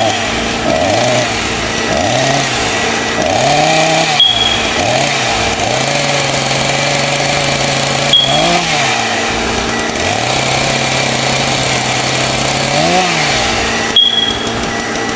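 A small engine revving over and over, its pitch rising and falling in arcs and sometimes held steady for a few seconds between revs. A short high tone sounds three times.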